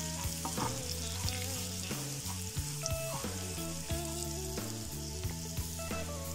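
Parboiled potato pieces sizzling in hot oil in a pan while a spatula stirs and tosses them, scraping and clicking against the pan, to work the spice powders through.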